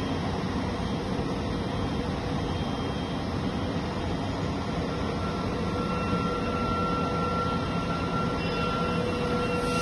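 Mobile self-loading concrete mixer running with a steady engine and machinery hum. A faint high whine joins about halfway through.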